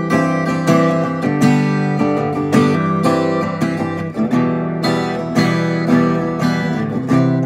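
Giannini Craviola acoustic-electric guitar strummed unplugged in a steady rhythm, with chords ringing and the chord changing every few strums.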